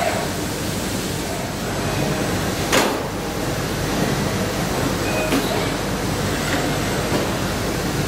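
Steady machine noise of a robotic cage-cleaning station. A sharp knock comes about three seconds in and a lighter click near five and a half seconds, as the ABB robot arm handles plastic mouse cages.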